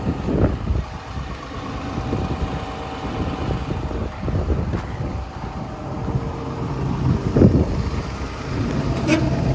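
Komatsu PC210LC-10 excavator's diesel engine idling steadily, with wind buffeting the microphone.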